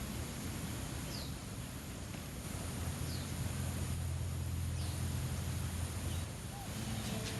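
Outdoor ambience: a steady background hiss with three faint, short chirps from a bird about two seconds apart, and a low hum that swells in the middle and fades. Acoustic guitar music comes in right at the end.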